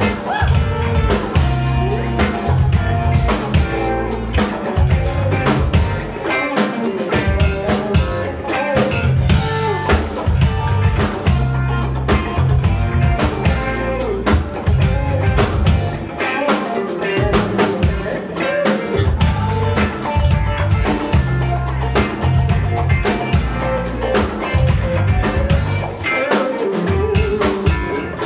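A live band playing: a drum kit keeping a steady beat, with bass and guitar.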